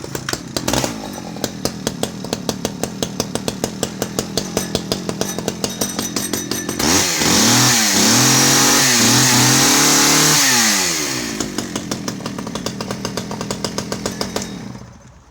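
Stihl 010 AV 37cc two-stroke chainsaw firing up on a restart and idling with an even beat. About seven seconds in it is revved high for a few seconds, with the revs blipped up and down. It drops back to idle and is switched off shortly before the end.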